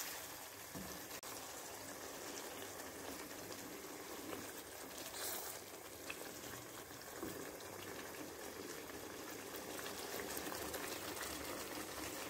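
Thick curry gravy with chicken koftas bubbling faintly in a pan while a spatula stirs through it.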